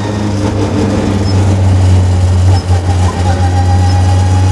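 Mk2 Ford Escort rally car's engine driving on the road, heard from inside the cabin: a loud, steady drone with a brief dip about two and a half seconds in.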